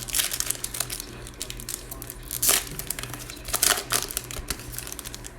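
Plastic trading card pack wrapper being torn open and crinkled, in a dense run of crackles, loudest about halfway through and again a second later.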